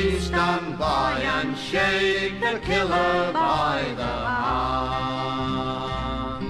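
Folk group singing the final phrase of a song in vocal harmony, the voices sliding between notes, then settling onto a long held chord near the end.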